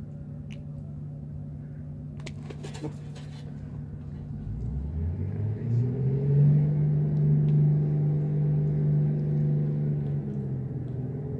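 A motor engine running with a steady low hum. About four seconds in, a second engine note rises in pitch from a deep rumble and settles into a louder, steady drone. A few short knocks come around two to three seconds in.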